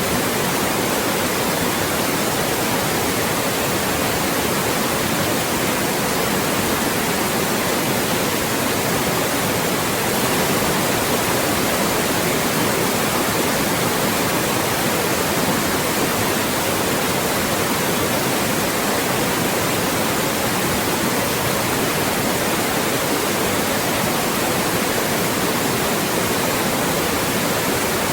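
Loud, steady white noise: an even hiss across the whole range with no changes, produced to mask speech.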